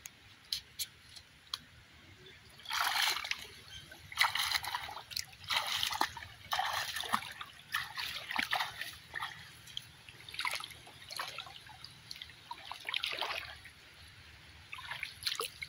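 Water dripping off a lifted cast net at first, then splashing with each stride as a man wades through shallow pond water carrying the dripping net, about one splash a second. The splashing dies down near the end, with one last splash.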